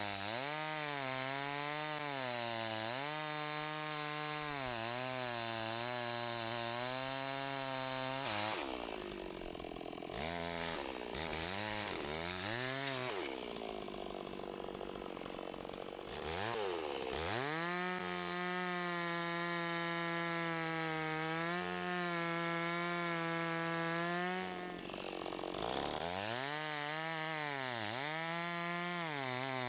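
Two-stroke chainsaw cross-cutting a storm-damaged log under tension, its engine revs sagging and recovering again and again as the chain bites. About eight seconds in the revs drop lower and wander for several seconds. They then pick up to a steady high pitch before wavering again near the end.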